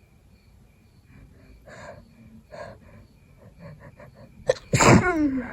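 A person with a cold sneezing once, loudly, near the end, after a couple of short breaths; the sneeze's voiced tail falls in pitch.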